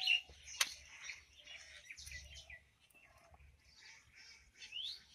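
Small birds chirping in short calls, one rising call near the end, with a sharp click about half a second in.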